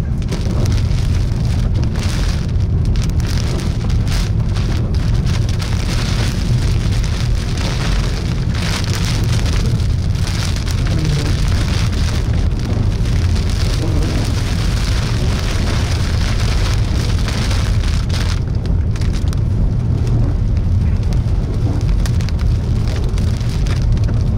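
Rain falling on a moving car's roof and windshield, heard from inside the cabin over a steady low road and engine rumble.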